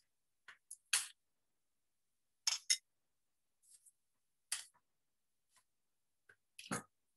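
A few short clinks and knocks of kitchen utensils, a bowl and a pair of tongs, being set down on a prep table, about five separate sounds with silence between them. The last, near the end, is heavier, with a dull thud.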